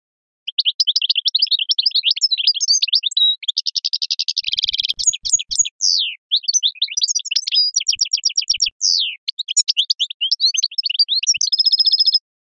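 Songbird singing a long, varied song of quick chirps, fast trills and buzzy rattles, with a few short breaks, in the 'sharqi' (eastern) song style.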